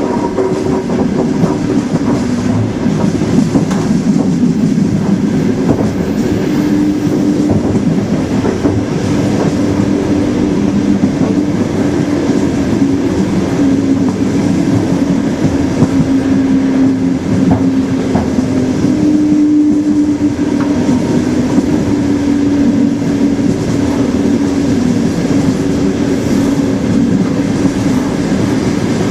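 Train wheels running on the rails, a continuous steady rumble with clattering over the rail joints and a low hum.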